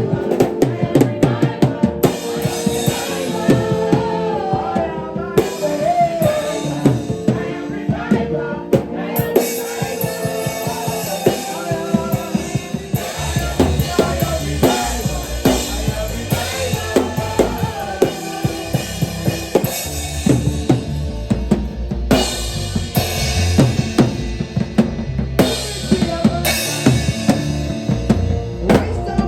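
Band music driven by a drum kit, with steady kick, snare and rimshot hits; a heavy bass line comes in about halfway through.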